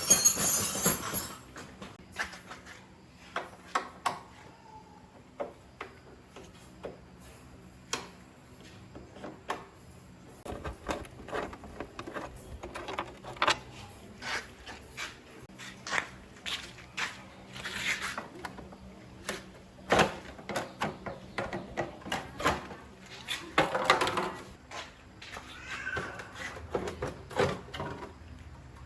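Irregular clicks, knocks and clinks of hard objects being handled, scattered through the whole stretch, with a few louder clusters.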